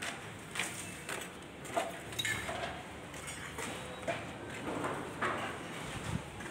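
Scattered light knocks and clicks at irregular intervals over a faint steady background, with a low thud near the end.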